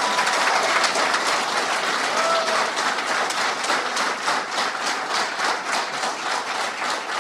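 Audience applauding steadily, with a couple of short cheers over the clapping near the start and about two seconds in.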